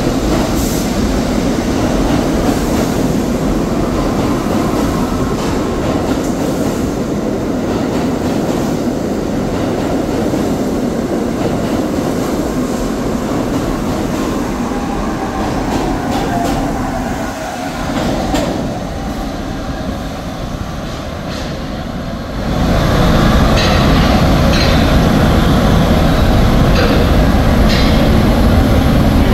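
New York City subway 1 train of R62A cars running along the station platform, a steady rumble of wheels on rail. After a cut about two-thirds of the way through it is louder, with sharp clicks and short squeaks from the wheels in the tunnel.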